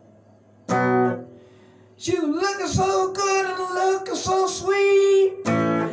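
A man singing with a Telecaster-style electric guitar: after a brief quiet start, one strummed chord rings out about a second in and fades, then from about two seconds in the voice and guitar carry on together with bending notes, and another chord is struck near the end.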